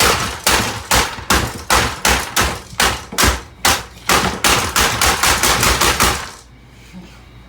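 Rapid, repeated hard blows smashing a stereo system, about three strikes a second and quickening toward the end. The blows stop about six seconds in.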